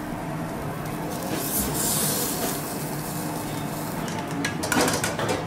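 Fish fillet sizzling on a hot flat-top griddle, the hiss swelling loud about a second and a half in and fading a second later. Near the end come several sharp clinks of metal utensils against pans, over a steady low hum.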